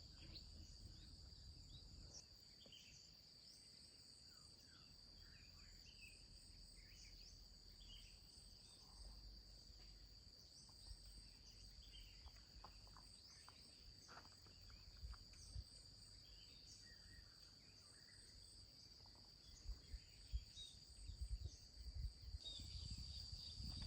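Faint outdoor ambience: a steady high-pitched insect chorus, with scattered short bird chirps and a few soft knocks near the end.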